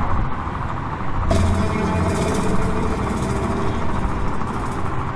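Many motorcycle engines running at a standstill in a packed crowd of bikes, a dense low rumble. About a second in, a steadier hum with a few held tones joins it.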